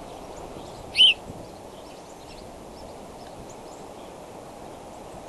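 Bald eagle giving one short, loud, high call that rises in pitch, about a second in, over a steady rushing background hiss. A few faint high chirps are scattered behind it.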